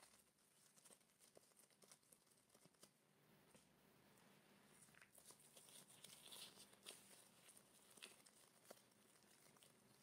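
Faint crinkling of disposable gloves and soft handling of yeast dough as it is rounded into a ball, in scattered small rustles and clicks.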